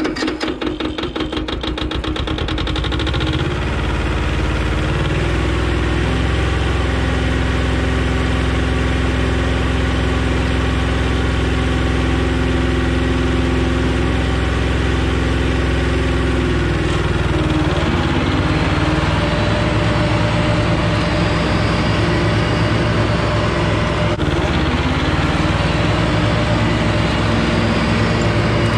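Yanmar compact tractor's diesel engine driving a PTO finish mower. The engine comes up to speed over the first few seconds, then runs steadily with the mower blades turning, and its pitch shifts about two-thirds of the way through.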